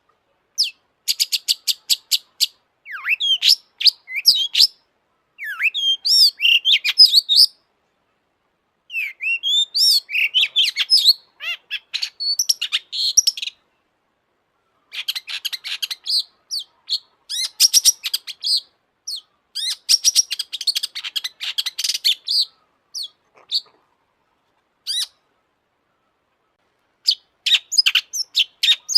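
Long-tailed shrike (cendet) singing in loud phrases of rapid chattering notes and short whistled slurs, with pauses of a second or more between phrases.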